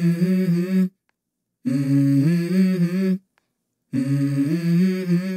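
A wordless hummed vocal melody in three phrases of about a second and a half each, the pitch moving in flat steps, each phrase cut off abruptly into silence.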